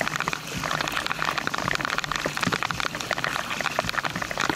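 Steady rain falling on open water and on the kayak, a dense patter of individual drop hits, with the kayak paddle dipping and splashing through the surface.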